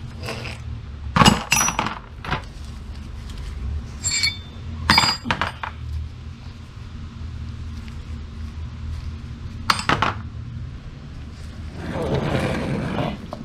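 Steel hand tools and nuts clinking as they are picked up off a concrete floor and set down among other wrenches in a tool pan: a handful of sharp metallic clinks spread over several seconds, then a longer scraping sound near the end, over a steady low hum.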